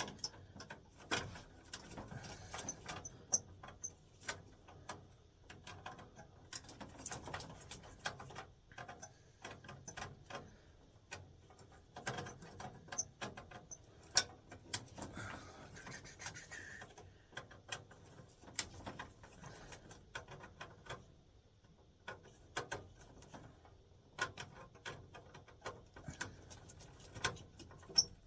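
Irregular small clicks, taps and rubbing of wires and spade terminals being handled as thermostat and accessory wires are moved over to a replacement furnace control board.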